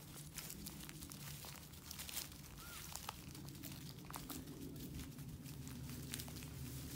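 Footsteps crunching through dry fallen leaves: an irregular string of crisp crackles over a low steady background hum.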